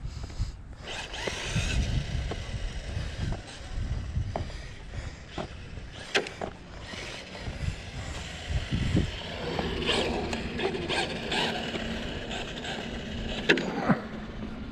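Electric-motored Traxxas Ford Mustang GT RC car driving on asphalt, its motor and gears whining, with a steadier hum from about ten seconds in. Uneven low rumbling of wind on the microphone and walking steps runs under it, and sharp clicks come near the end.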